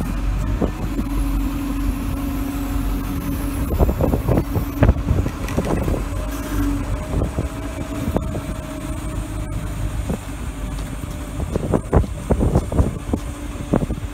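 Service truck's engine running steadily, a constant hum with a held tone, with a few short knocks and clicks around five seconds in and again near the end.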